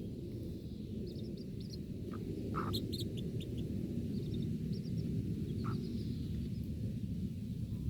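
Baby chicks peeping in small clusters of short, high chirps over a steady low rumble, with two brief lower calls, about two and a half seconds and six seconds in.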